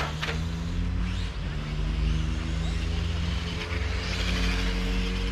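Small electric Tamiya M-chassis RC cars racing on asphalt: a high motor-and-tyre whine that swells a few seconds in as a car passes, over a steady low hum.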